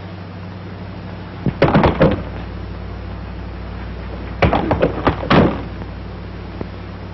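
Two bursts of several quick knocks or thumps about three seconds apart, each of four or five strokes, over the steady low hum and hiss of an early 1930s film soundtrack.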